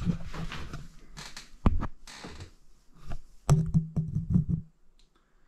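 Close handling noise from a camera being moved about by hand: scattered knocks and taps with some rubbing, the strongest knocks about one and a half and three and a half seconds in, stopping near the end.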